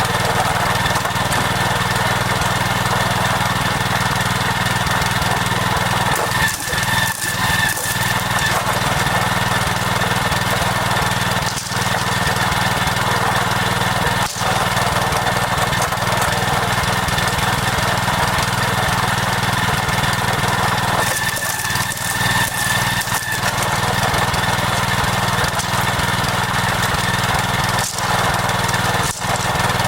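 A small engine running steadily at a constant speed, its level briefly dipping a few times.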